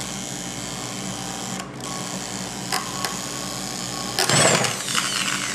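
Electric drill running steadily as it turns an M6 screw extractor into a broken exhaust manifold stud in a KA24DE cylinder head, with a brief dip in its sound less than two seconds in and a couple of small clicks. Near the end comes a loud, sharp crack as the extractor snaps off in the stud, followed by a falling whine.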